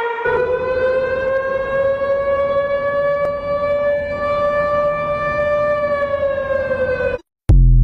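A person's impression of an emergency alarm siren: one long held tone that slowly rises in pitch, then sags and stops. Near the end comes a brief loud low thump.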